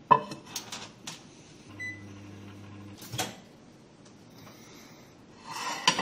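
A glass bowl clinks onto a microwave oven's glass turntable. The oven then hums steadily for about a second, with a short beep as it starts, and a sharp click of the door ends it. Near the end a spatula scrapes around the glass bowl.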